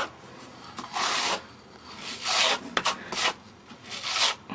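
Plasterer's trowel spreading coloured fine render on a wall: several rasping, scraping strokes about a second apart.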